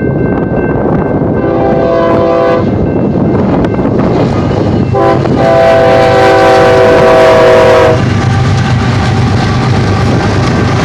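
Air horn of an approaching BNSF freight train's lead ES44DC diesel locomotive sounding a short blast, then a long blast of about three seconds. After that the locomotives' diesel engines rumble past with wheel clatter on the rails.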